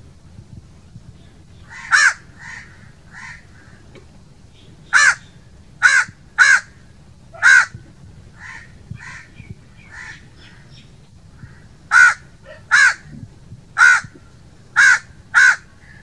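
House crow cawing: about ten short, loud caws in bouts. There is one caw about two seconds in, a run of four from about five seconds, and five more from about twelve seconds, with fainter caws in between.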